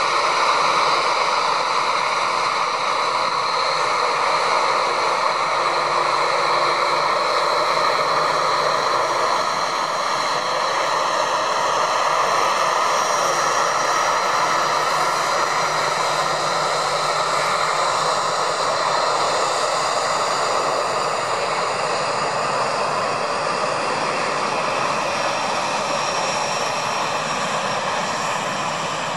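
Cessna 500 Citation's twin Pratt & Whitney JT15D turbofan jet engines running as the jet taxis and starts its take-off roll. They make a steady rushing noise with a high turbine whine on top, easing off slightly near the end as the jet draws away.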